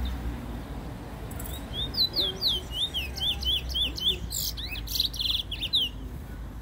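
Caged black bullfinch singing: a fast run of quick, sweeping whistled notes lasting about four and a half seconds, beginning about a second and a half in, with a couple of buzzy notes near the end. A low rumble of road traffic runs underneath.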